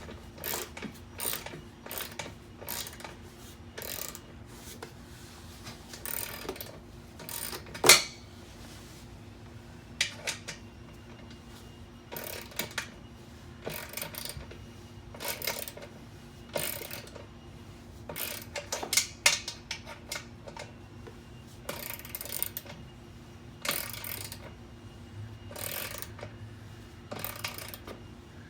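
Tools and metal parts being handled: irregular clicks, short rattles and knocks, with one sharp knock about eight seconds in. A faint steady low hum runs underneath.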